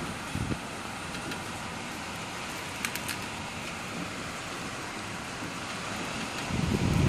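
Tropical storm wind and driving rain: a steady rushing hiss with a few sharp ticks about three seconds in, and a gust buffeting the microphone in a low rumble near the end.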